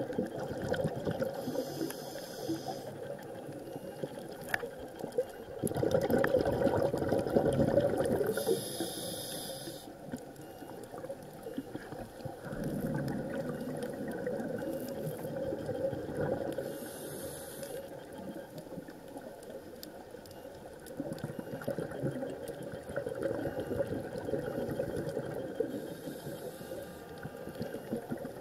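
Muffled underwater water noise picked up by a camera on a coral reef dive. A short hiss comes roughly every eight seconds, with a louder stretch of water noise about six seconds in.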